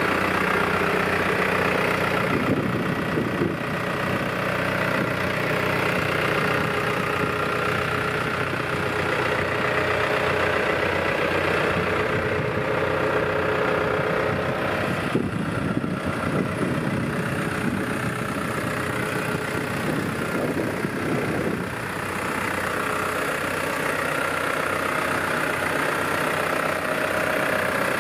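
New Holland T6020 tractor's diesel engine idling steadily.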